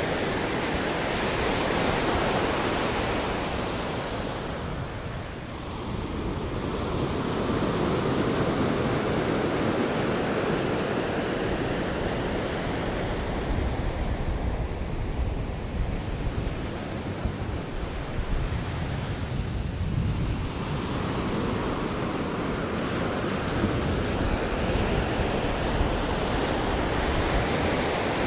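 Ocean surf washing onto a sandy beach: a steady rushing that swells and eases, dipping twice as waves draw back.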